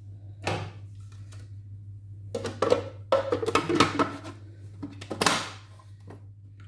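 Kitchen handling sounds: a few clinks, knocks and a short scrape of containers and utensils, over a steady low electrical hum.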